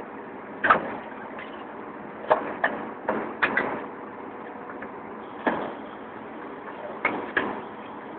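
Caterpillar 322 excavator's diesel engine running steadily under a string of sharp knocks and bangs, about nine in all, coming singly and in quick pairs, as concrete blocks are broken out of a wall.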